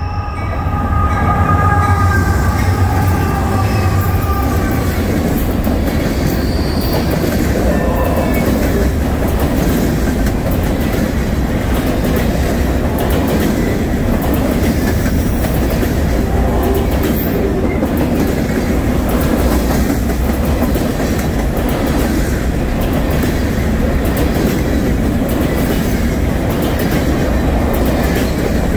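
Norfolk Southern freight train passing close: the lead diesel locomotives go by in the first few seconds with a heavy engine rumble and a chord of high tones that slides a little lower and fades. Then a long string of loaded covered hopper cars rolls past with a steady wheel rumble and the rhythmic clickety-clack of wheels over rail joints.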